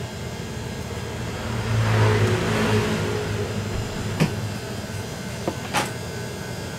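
A motor vehicle engine swells up and fades away about two seconds in, over a steady low hum. Two short sharp knocks follow, one about four seconds in and one about six seconds in.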